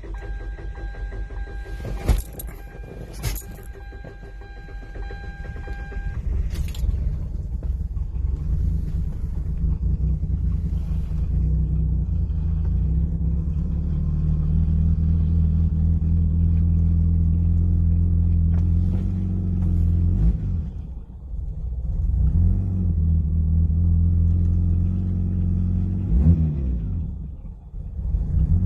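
2005 Hyundai Tiburon's 2.7-litre V6 being started with difficulty, a hard start: two sharp clicks and a steady high tone in the first few seconds, then the engine rumble builds and settles into running. Later the engine sags twice, nearly stalling, and is brought back up with blips of the throttle.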